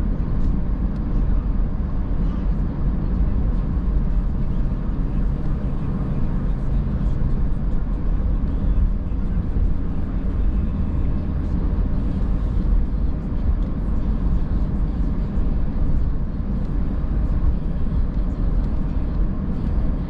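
Steady road and engine rumble of a moving car, heard from inside the cabin, with faint scattered ticks over it.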